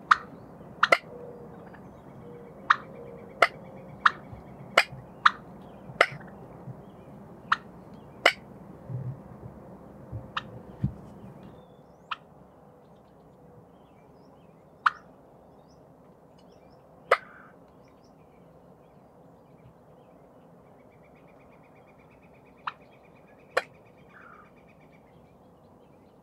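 Wild turkeys calling with short, sharp clucks: a run of single notes about one a second for the first eight seconds or so, then a few more spaced several seconds apart.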